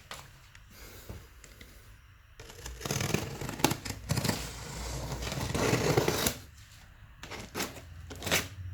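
Packaging being handled while a speaker box is opened: a few small knocks, then several seconds of rustling and scraping from about two and a half seconds in, then a few sharp clicks near the end.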